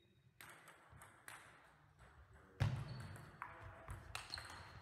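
Table tennis rally: the ball clicking sharply off rackets and table about five times, roughly once a second, with a heavier thud about two and a half seconds in.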